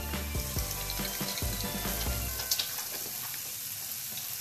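Tap water running into a bathroom sink while soapy hands are rinsed under the stream, an even hiss of water with small splashes from the hands.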